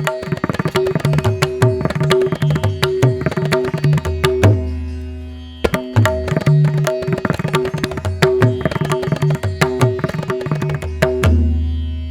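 Background music in an Indian classical style: quick hand-drum strokes over a steady drone, with a brief lull about halfway through before the drumming picks up again.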